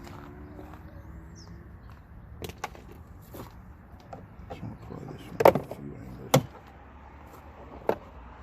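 Sharp plastic clicks and knocks at irregular intervals as trim pieces are pried off a pickup's inside door panel, the loudest about halfway through.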